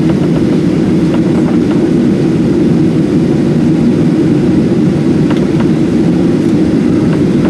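Steady, loud low rumble inside the passenger cabin of a Boeing 737-700, from its twin CFM56-7B jet engines and the air around it.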